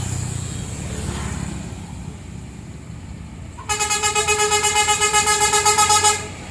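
Tour bus's Basuri musical horn sounding one steady note with a fast flutter for about two and a half seconds, starting a little past halfway, over the rumble of the bus moving off.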